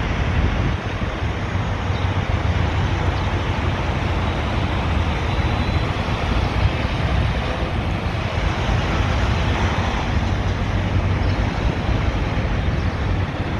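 Diesel engine of a semi tractor-trailer running as the rig pulls slowly past close by, a steady low engine note.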